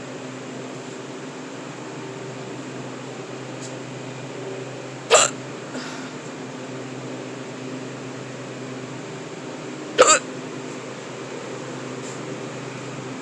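A person hiccuping twice, about five seconds apart, each a short sharp gulp. Underneath runs the steady hum of the walk-in cooler's refrigeration fans.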